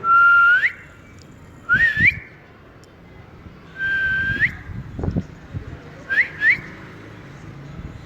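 Ring-necked parakeet whistling: long level whistles that sweep sharply up at the end, alternating with short rising whistles, the last a quick pair. A couple of low thumps come through around two and five seconds in.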